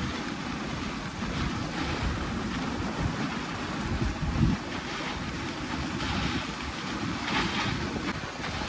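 Wind buffeting the microphone over the steady hiss of a dog sled's runners gliding on packed snow.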